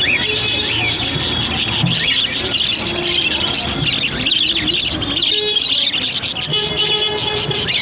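Parrots chirping and squawking, many short calls overlapping without a break, with a few longer whistled notes mixed in.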